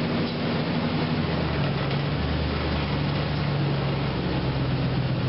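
A 2004 Nissan Titan's 5.6-litre V8 idling inside a garage, its engine note shifting about a second and a half in.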